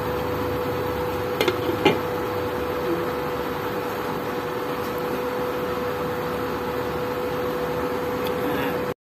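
A glass pot lid clinks three times as it is set onto a frying pan about one and a half to two seconds in. Underneath, an induction cooktop hums steadily while the chicken curry is brought back to the boil.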